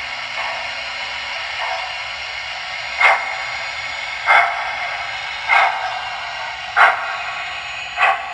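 Steady hiss from the model train layout's digital sound while the O-scale water tower fills the locomotive's tender. From about three seconds in, a short, sharp bark-like sound repeats about every second and a quarter.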